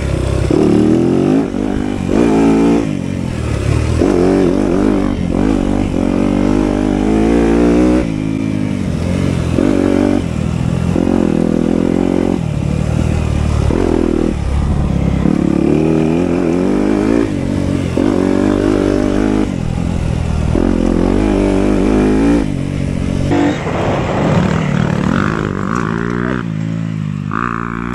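A 250cc four-stroke single-cylinder motocross bike engine revving hard under load. Its pitch climbs and drops back about every two seconds as the throttle is opened and rolled off through the corners and straights.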